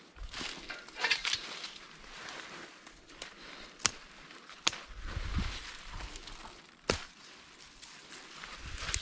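Rustling and scraping handling noise broken by a few sharp snaps or cracks, the loudest about four and seven seconds in.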